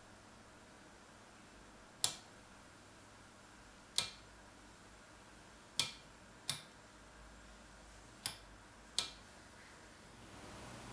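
Rotary selector switch on a 1963 Heathkit IM-13 vacuum-tube voltmeter clicking into its detents as the knob is turned a step at a time: six sharp clicks, one to two seconds apart.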